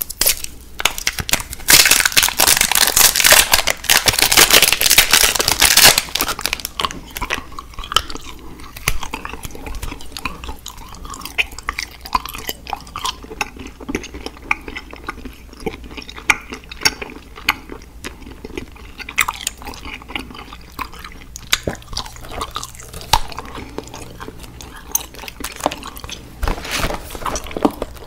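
Close-miked chewing of candy: loud crunching for the first several seconds, then softer chewing with scattered small clicks.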